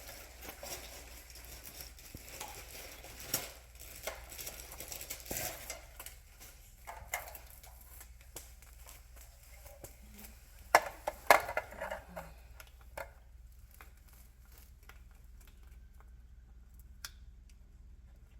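Handling noises as a sewing machine and its cord are set up for plugging in: irregular rustling and scattered clicks, with a cluster of sharp knocks about eleven seconds in, then only a few faint ticks.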